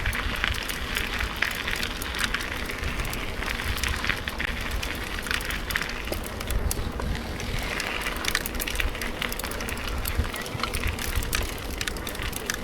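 Mountain bike rolling downhill, its tyres making a steady run of small clicks and crunches over a rough surface, with wind rumbling on the microphone.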